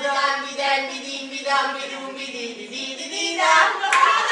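Actors' voices singing drawn-out, wavering notes, breaking into laughter near the end.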